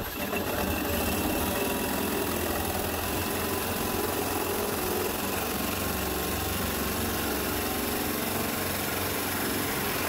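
Power drill spinning a 1.5-inch hole saw as it cuts into a car hood panel, a steady grinding whir under even pressure that starts right at the outset.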